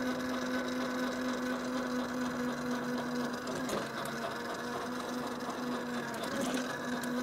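Tuttio Soleil01 electric dirt bike's motor whining steadily at full throttle, held at its roughly 14–15 mph limit in its lowest mode. The pitch dips briefly a little over halfway and wavers again near the end as the controller governs the speed back and forth.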